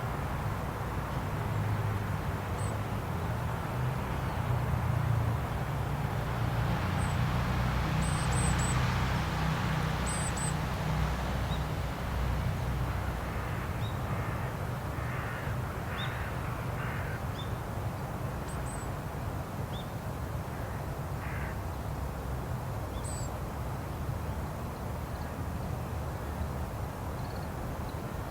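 Japanese tit calling: scattered short, thin high notes, with a run of harsher buzzy calls around the middle, over a steady low rumble.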